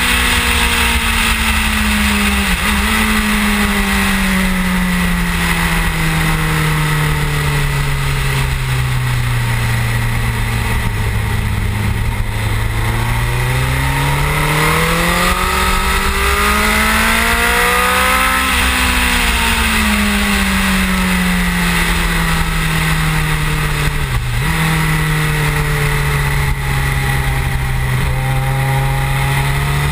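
Suzuki GSX-R1000 K7 inline-four sportbike engine at speed, heard over wind rush from a camera on the front fairing. Its pitch falls slowly for about a dozen seconds, climbs to a peak about two-thirds of the way through, then falls again, with two brief drops in between.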